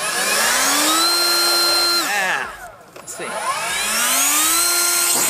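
Kobalt 80V Max brushless cordless leaf blower (KHB400B) on speed setting three: the motor spins up with a rising whine and a rush of air, holds steady for about a second, winds down, then spins up again about three seconds in and keeps running.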